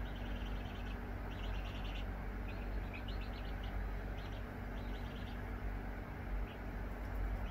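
Chicken chick peeping: quick runs of high chirps in short bursts, about one burst a second, over a steady low hum.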